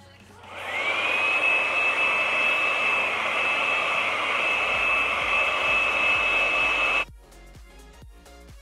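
Handheld hair dryer switched on, its motor whine rising to a steady high pitch over about a second, blowing steadily, then cut off suddenly about seven seconds in.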